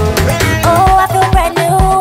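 Upbeat dance music with a steady drum beat under a held melody line.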